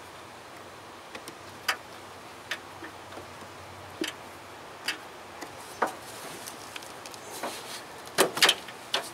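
Irregular metal clicks and clinks of a hand tool working a heater-hose clamp at the heater box, with a louder cluster of knocks near the end as the hose is worked loose.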